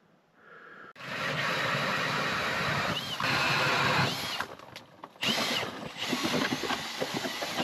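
Cordless drill driving an ice auger, boring a hole through the ice with a steady grinding whir. It starts about a second in, stops briefly about two-thirds of the way through, and starts again.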